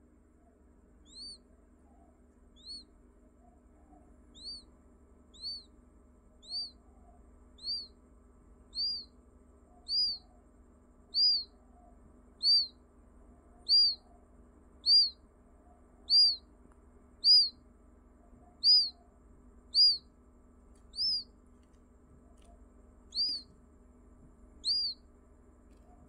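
Newly hatched quail chick peeping: single high calls that rise and fall in pitch, about one a second, growing louder over the first ten seconds and pausing briefly before the last two.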